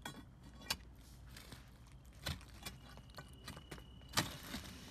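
Steel pry bar scraping and clinking in a crack between broken slabs of concrete: scattered faint metallic clinks and knocks, the loudest about four seconds in.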